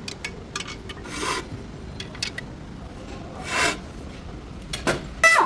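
Separate rasping, scraping strokes like hand filing or sanding, a second or two apart, with a short squeak falling in pitch near the end.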